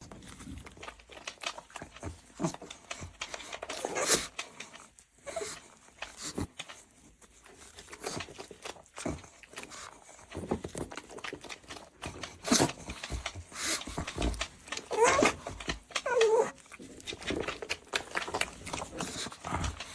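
A pug's sounds: scattered clicks and knocks, with two short wavering vocal sounds about fifteen and sixteen seconds in.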